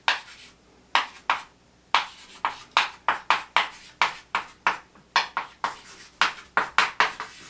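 Writing strokes: short, sharp taps and scrapes of a writing implement on a writing surface as an algebra expression is written out during its expansion. There are a few strokes at first, then about three to four a second from about two seconds in.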